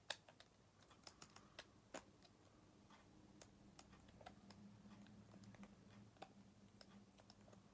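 Faint, irregular small plastic clicks and ticks as fingers handle the small plastic gears inside an opened correction tape roller.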